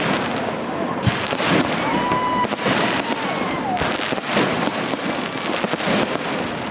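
Fireworks display: a dense, continuous run of bangs and crackling, with a short whistling tone about two seconds in.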